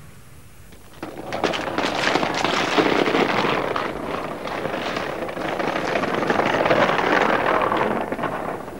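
Roller-skate wheels and a bicycle rattling over paving stones, a dense crackling rattle that starts about a second in and dies away near the end.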